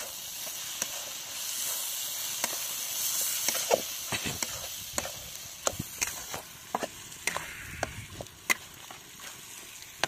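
Lentils and peanuts sizzling in hot oil in an iron kadai, a steady hiss broken by frequent sharp clicks and scrapes of a metal spatula stirring against the pan. The hiss eases in the second half.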